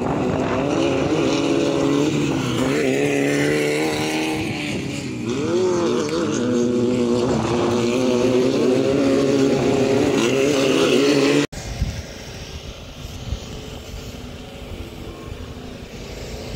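1600cc off-road race buggy engines racing, several at once, their pitch rising and falling as they rev through the corners. About eleven seconds in the sound cuts off abruptly to a much quieter background hum.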